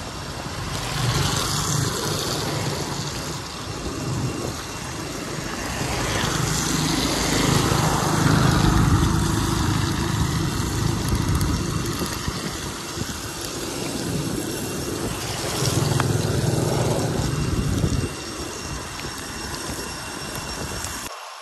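Small motorbike engines and a tuk-tuk passing by on a wet road, swelling and fading three times, loudest in the middle. Underneath runs a steady hiss of tyres on wet asphalt and rain.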